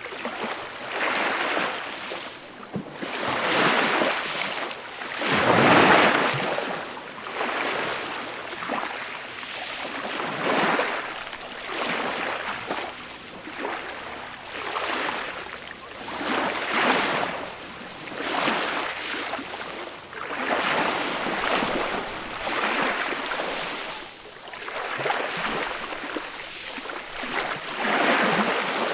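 Small sea waves breaking and washing up a beach, a hiss of surf that swells and fades every second or two, one wave a little louder about six seconds in.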